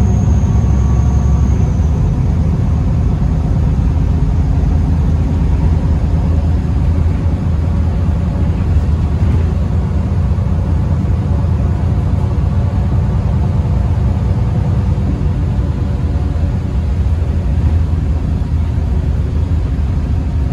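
Inside a Solaris Urbino 18 articulated city bus under way: a steady low rumble from its DAF PR228 diesel engine mixed with road noise.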